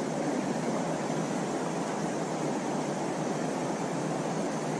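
Steady rushing of creek water, an even noise with no breaks or distinct sounds.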